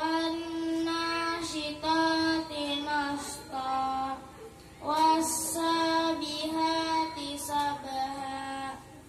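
A boy's voice singing into a microphone over a loudspeaker, in long, drawn-out melodic phrases with short pauses for breath.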